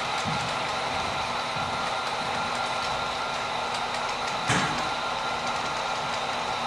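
Model freight train running on a layout: a steady rolling noise of the cars' wheels on the track, with one sharp click about four and a half seconds in.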